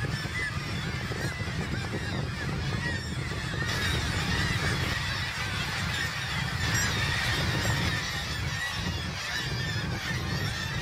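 Black-legged kittiwake breeding colony calling: a dense chorus of many birds giving short, shrill, overlapping calls all at once, over a steady low rumble.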